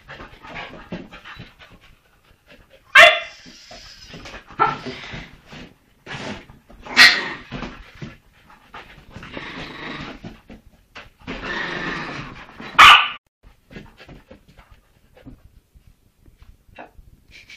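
Dogs playing: a Leonberger puppy and Chihuahuas, with three loud, sharp barks spread several seconds apart and quieter dog noises between them. The last few seconds are quieter.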